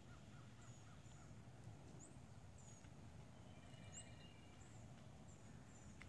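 Faint outdoor ambience: small birds giving high, thin chirps every half second or so, with a short run of lower notes in the first second, over a low rumble.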